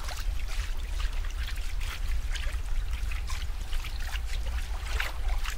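Water trickling and splashing in quick irregular drops, over a steady low rumble.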